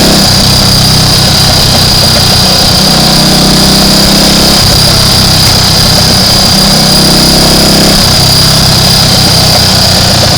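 Triumph Tiger Cub's 199 cc single-cylinder four-stroke engine running under way, its note stepping up and down several times as the throttle and gears change. The bike has an intermittent misfire, which the rider suspects lies in the carburettor. A steady high whine sits over the engine note.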